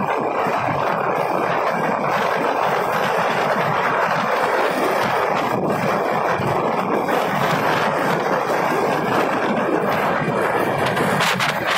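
Steady rush of wind and road noise on a phone microphone riding on a moving motorbike, with crackling buffets starting just before the end.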